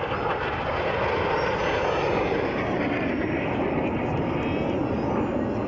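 Display jet aircraft flying over, a steady rushing engine noise that holds without a break.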